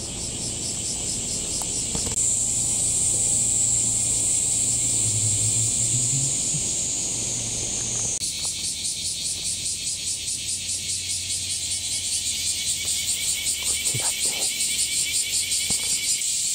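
Chorus of cicadas in the summer trees: a loud, high-pitched buzz, steady at first, that about halfway through turns into a pulsing rhythm of two or three pulses a second.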